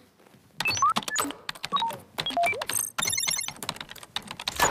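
Electronic sound effects: quick clicks mixed with short beeps and chirps at changing pitches. About three seconds in, a fast repeating electronic trill takes over, and it ends in one sharp click.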